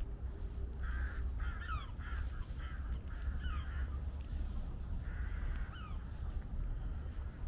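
Crows cawing: a run of harsh calls in the first few seconds and another a couple of seconds later, with short falling chirps from other birds among them. A steady low rumble runs underneath.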